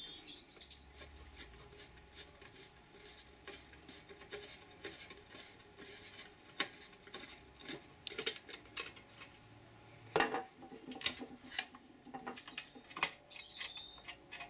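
Clicks and scraping of metal and plastic as a screwdriver undoes the screw holding the glass front of a 120 W halogen work light, then the hinged front frame with its metal guard is swung open. The loudest click comes about ten seconds in.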